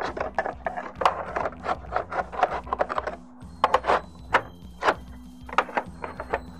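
A roofing slate scraping and clicking against the surrounding slates as it is slid up into place under the course above: a quick run of short scrapes and knocks for about three seconds, then a few sparser sharp clicks.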